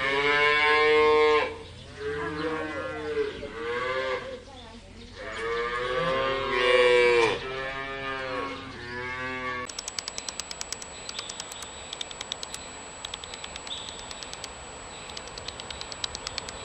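Cattle mooing: about six drawn-out calls, one after another, over the first ten seconds. After that the mooing stops, and a quieter steady high whine with a rapid train of faint clicks takes over.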